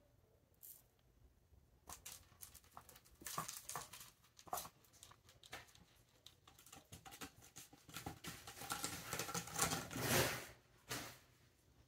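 Kittens playing with cat toys on carpet: scattered light taps, clicks and rustles of paws and plastic toys, thickening into a burst of claw scratching around ten seconds in as a kitten climbs a sisal scratching post.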